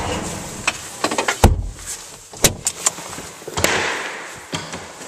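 A Bobcat S300 skid steer's 81 hp four-cylinder Kubota diesel cuts off, then a series of metallic clunks and knocks follows from the cab door being opened and someone climbing out. The loudest two knocks come about a second and a half and two and a half seconds in.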